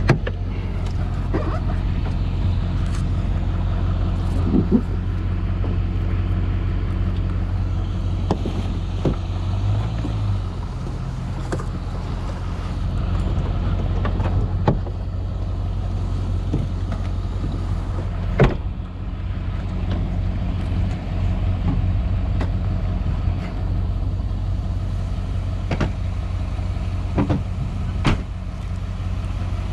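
An engine running steadily with a low hum, with a few sharp knocks or clicks scattered through it.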